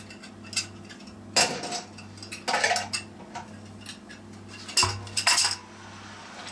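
Stainless steel Cornelius keg and its metal lid and fittings clinking and knocking as they are handled and the keg is lifted and tipped over: a handful of separate clanks, the loudest about a second and a half in and again near five seconds. A steady low hum runs underneath.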